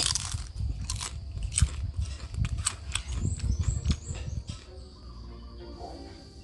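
Crisp crunching and chewing of fried wontons, many sharp crackles in quick succession. They stop after about four and a half seconds, and soft background music comes in.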